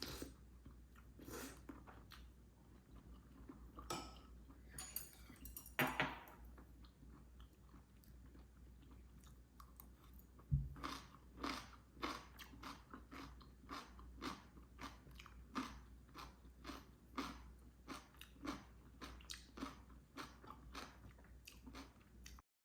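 A person chewing crunchy food, with sharp crunching bites repeating about twice a second through the second half, after a few scattered crunches and a low thump about ten seconds in.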